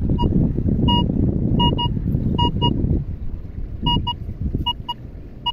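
Minelab Vanquish 440 metal detector giving about a dozen short, single-pitch beeps, often in pairs, as its coil sweeps over wet sand. Underneath is a low wind rumble on the microphone, loudest in the first three seconds.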